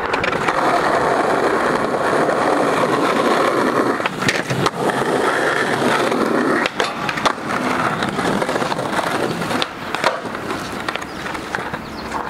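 Skateboard rolling over paving tiles, with several sharp clacks of the board striking the pavement during trick attempts.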